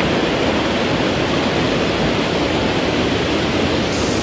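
River water rushing over a rocky cascade right around the microphone, a loud, steady, unbroken rush.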